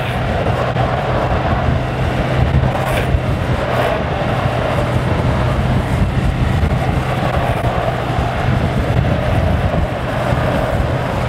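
Steady rush of wind and road noise from fast travel down an asphalt road, with a constant low hum underneath and a couple of brief brighter swells near the start and about three seconds in.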